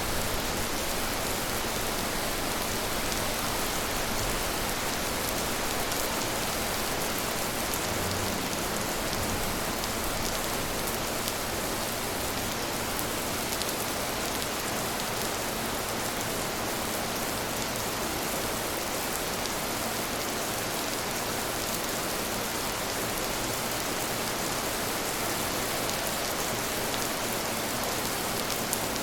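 Steady rain falling, an even hiss with scattered drop ticks and no change in strength.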